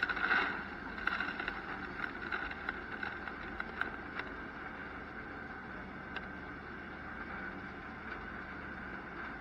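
Farm harvest machinery running steadily with a low hum, with a brief rush of noise in the first half second and light rattling over the next few seconds.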